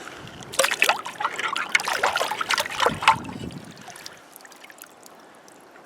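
Water splashing and dribbling in a quick run of splashes for about two and a half seconds, as something is rinsed by hand in shallow river water, then only the faint steady sound of the stream.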